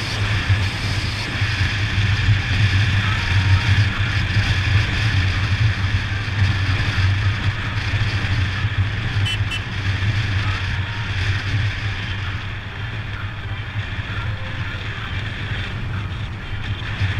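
Royal Enfield Himalayan single-cylinder motorcycle engine running at a steady cruise, a constant low drone, with wind rushing over the camera microphone.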